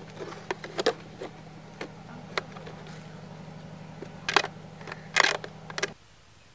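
A small blade scraping and cutting into a ribbed plastic pot, with scattered clicks and handling taps and two louder scrapes about four and five seconds in. A steady low hum runs underneath and cuts off abruptly near the end.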